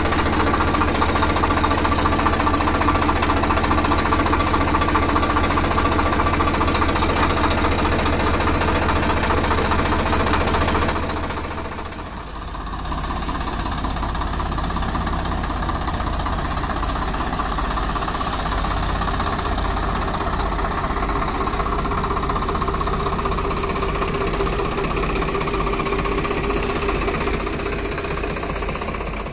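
Swaraj 744FE tractor's three-cylinder direct-injection diesel engine running steadily. About eleven seconds in the sound drops a little and changes character, then runs on evenly.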